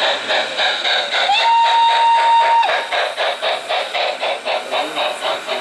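O-scale (1/43) model steam locomotive and freight wagons running past with a fast, even rhythmic clatter. About a second in, a single steady whistle sounds for just over a second and cuts off suddenly.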